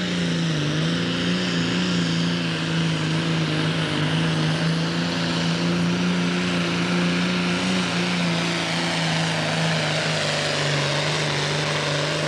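Pro Stock pulling tractor's turbocharged diesel engine running flat out under heavy load as it drags the weight-transfer sled, a loud steady drone that dips briefly about half a second in and sags slightly in pitch near the end.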